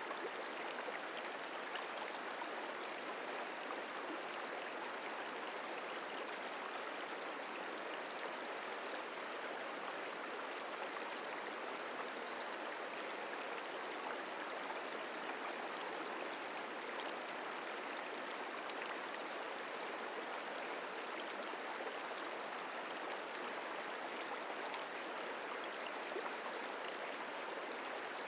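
Merced River flowing: a steady, even rush of moving water with no breaks or distinct splashes.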